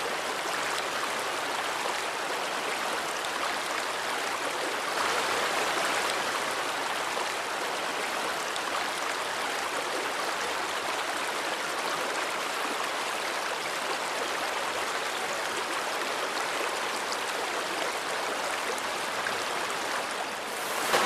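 Shallow river running fast over rocks in a riffle: a steady, even rush of water.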